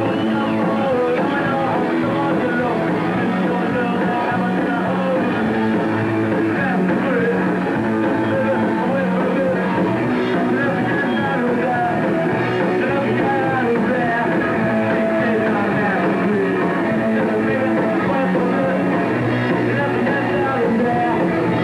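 Punk rock band playing live, with loud, steady electric guitar, bass and drums and a male voice singing.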